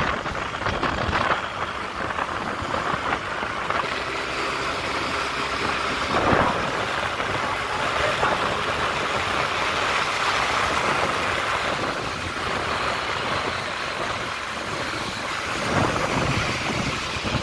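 Steady engine and wind-and-road rush of riding at speed along a highway, with a motorcycle running close by. There is a brief louder rush about six seconds in.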